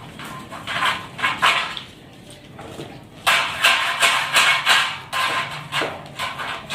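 Repeated rough scraping strokes, one after another, louder from about three seconds in.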